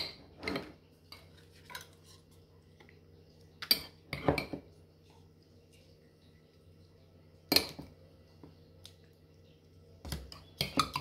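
Metal spoon clinking and scraping against a glass jar and plastic cups while applesauce is scooped out and portioned: a handful of sharp clinks a few seconds apart.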